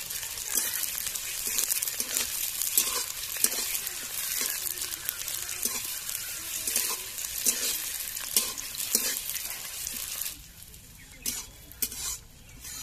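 Chopped onions sizzling in hot mustard oil in a kadai, stirred with a metal spatula that scrapes against the pan about once a second. The sizzle drops away sharply about ten seconds in, leaving fainter scrapes.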